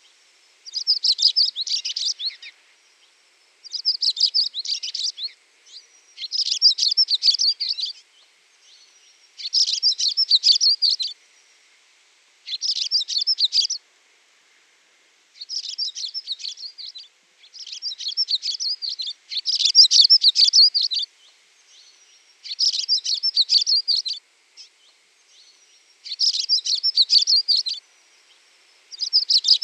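Songbird singing: repeated phrases of rapid, high chirping notes, each about one to two seconds long, with short pauses between them.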